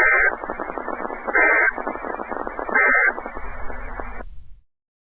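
NOAA Weather Radio SAME end-of-message data: three short electronic bursts about a second and a half apart, marking the end of the weekly test broadcast. Radio static runs between the bursts and cuts off suddenly near the end.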